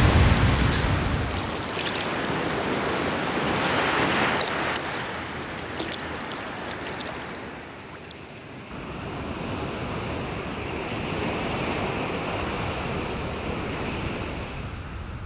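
Ocean surf: waves breaking and washing over rocks with a fizzing rush of foam. It dies down about eight seconds in, then builds into a steady wash again.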